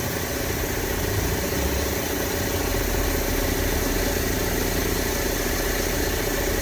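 Diesel truck engine running steadily at an even, low speed.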